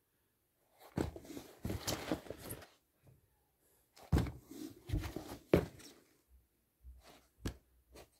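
Knocks, thumps and rustling from sneakers being handled and moved about on a rug, with phone handling noise. Two bunches of knocks and rustles come about a second in and about four seconds in, and a couple of single thumps come near the end.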